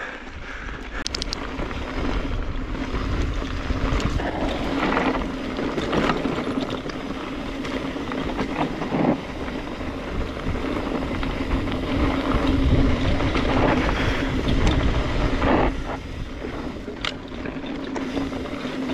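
Wind buffeting a chest-mounted action camera while a mountain bike rolls fast down a dirt trail, knobby tyres on dirt with a steady hum and a few sharp rattles over bumps.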